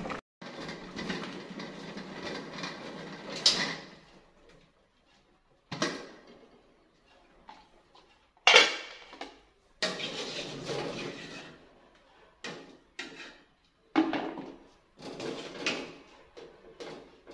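Water boiling in a metal cooking pot for the first few seconds, then a series of metal clatters and knocks as the pot, spoon and ladle are handled and the contents are scooped out, the loudest about eight and a half seconds in.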